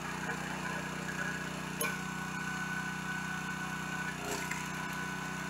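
Small gasoline engine of a 30-ton log splitter running steadily, with two short knocks, about two seconds in and a little after four seconds, as wood is set on the splitter.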